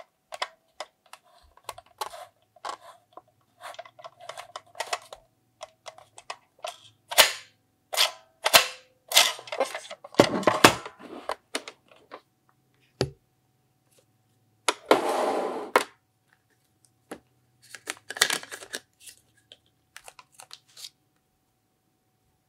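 Plastic clicks and taps of buttons being pressed on a toy supermarket cash register and toy electronic scale, with a few louder knocks and a couple of noisy bursts of about a second each.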